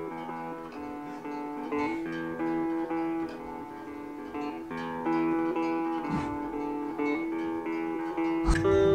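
Background music with a plucked-string melody, a run of short picked notes. A single sharp thump sounds near the end.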